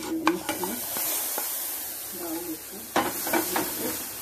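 Ghee-roasted fox nuts (makhana) sliding from a pan into boiling milk in a steel pot with a sizzling hiss, then a steel spoon stirring them in, scraping and clicking against the pot.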